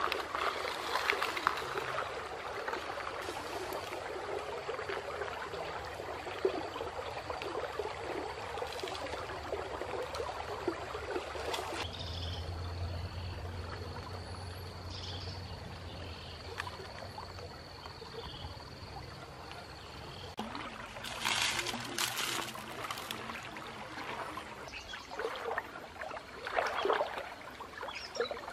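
Shallow forest stream trickling and sloshing. A steady high-pitched whine holds for several seconds in the middle, and there are louder bouts of splashing water twice near the end.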